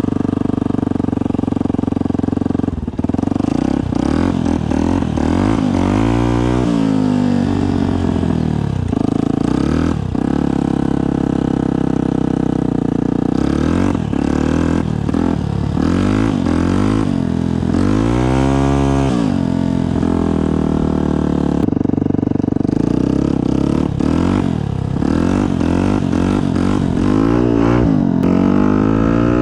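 Yamaha WR125's single-cylinder four-stroke engine through a Black Widow aftermarket exhaust, revving up and dropping back repeatedly as the bike is ridden, with two long high revs about a third and two thirds of the way in.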